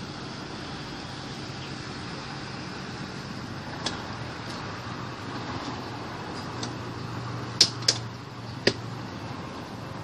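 Metal frame and latch clicks of a folding three-wheel electric scooter being folded by hand: one faint click about four seconds in, then three sharper clacks near the end.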